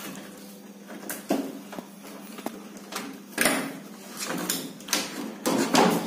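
Wiring being handled and pushed into the plastic control-panel housing of a washing machine: scattered scrapes, rustles and light plastic knocks, louder near the end, over a faint steady hum.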